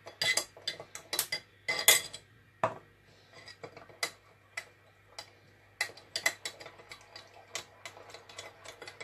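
Metal spoon stirring spices with a little water in a small jug, clinking against its sides in quick irregular ticks, with a few louder knocks in the first two seconds and faster, lighter clinks near the end.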